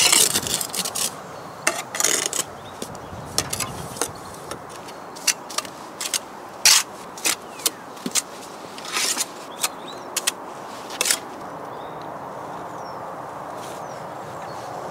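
Steel brick trowel scraping and tapping against mortar and brick as mortar is spread into a gap in a brick wall and onto a new brick. A scattered run of short scrapes and clicks that thins out after about eleven seconds.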